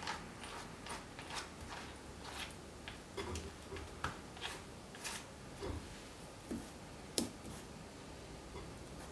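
A painting tool scraping and tapping across a painting panel as it spreads water-based cold wax medium mixed with acrylic paint. The strokes are short and irregular, about one or two a second.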